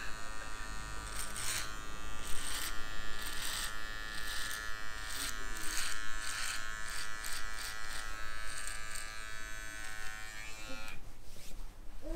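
Cordless electric hair trimmer buzzing steadily as it is run over neck stubble, with a short crackle each time a stroke cuts through the beard hair. It switches off about a second before the end.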